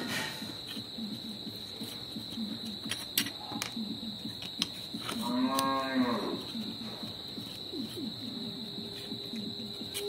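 Small sharp clicks of a screwdriver working the screws that hold 13007 switching transistors to an aluminium heat sink, over a steady faint high whine. About halfway through, one drawn-out call rises and falls in pitch for about a second and a half, the loudest sound.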